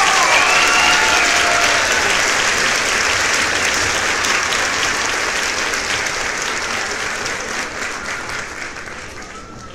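Crowd applauding, with a few whistles in the first couple of seconds, slowly fading.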